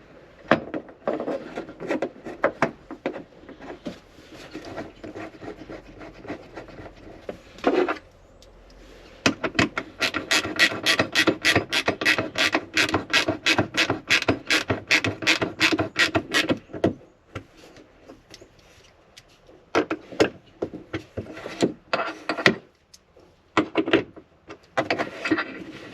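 Small tool-kit ratchet clicking as it turns a T40 Torx bolt on a billet-aluminium hardtop lock, with a fast even run of clicks, about five a second, for some six seconds in the middle. Before it, rubbing and scraping of the parts being fitted by hand, and a few scattered clicks near the end.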